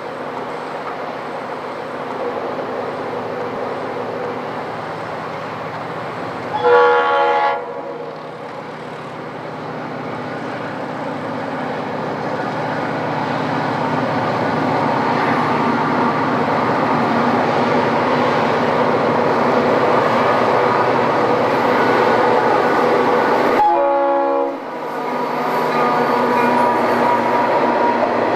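Diesel freight train approaching and running past, its locomotive air horn sounding a short chord about seven seconds in and another about twenty-four seconds in. Engine and wheel noise builds steadily in between and stays loud.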